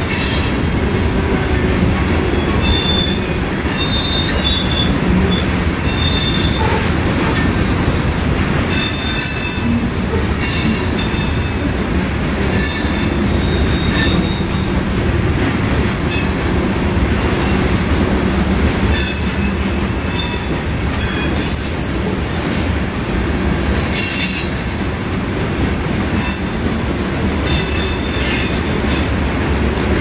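Freight train of covered hopper cars rolling past: a steady rumble of steel wheels on rail with irregular clacks, and brief high-pitched wheel squeals a few seconds in and again around twenty seconds in.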